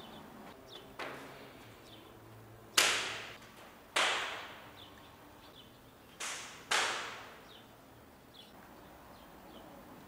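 Several sharp bangs, each ringing out and dying away within a second. The loudest comes nearly three seconds in, and a pair falls about two-thirds of the way through.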